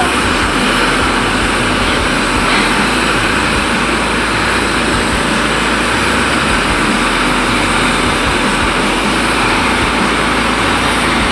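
Heavy-equipment diesel engine running steadily close by, a loud, even, unchanging rumble and hiss.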